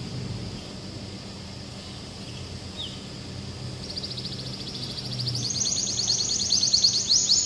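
Domestic canary singing a fast, high trill of rapidly repeated notes, about ten a second, starting about four seconds in and growing louder toward the end, after a single short falling note.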